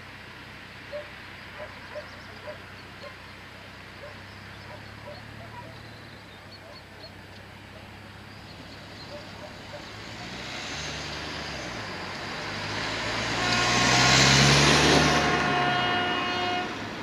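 Cars driving over a rural level crossing: a car passes close by about two-thirds of the way through, its engine and tyre noise swelling to a peak and fading. Faint, evenly repeated bird chirps are heard in the first half, and a steady multi-toned sound starts as the passing noise peaks.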